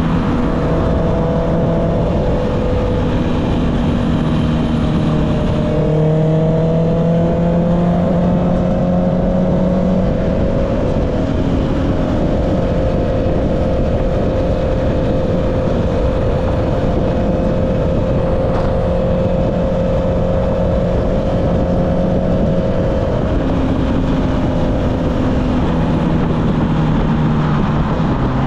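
Honda CB650R's inline-four engine running through an Akrapovic exhaust at a fairly steady engine speed while riding, over a constant rush of wind and road noise. The engine note shifts slightly in pitch a few times but holds mostly even.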